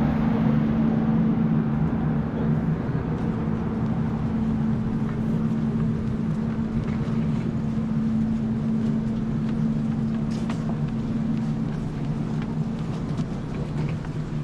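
Steady engine drone with a constant low hum and an even rushing noise, as heard riding aboard a moving vehicle.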